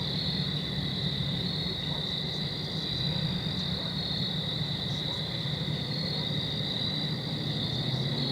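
Steady insect chorus: a continuous high-pitched trilling that does not let up, over a low steady drone.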